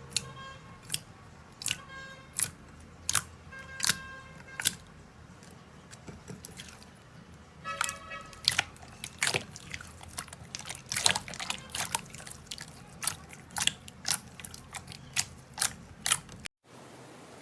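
Slime being pressed and poked, giving a long series of sharp clicks and pops at an irregular pace, some with a short ringing tone. The sound cuts out briefly near the end.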